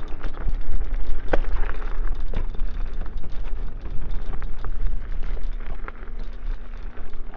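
Electric scooter ridden over bumpy, wet grass: a steady low rumble of wind and vibration on the microphone, with frequent clicks and knocks as the scooter jolts over the ground with no rear suspension and hard-pumped tyres, and a faint steady hum underneath.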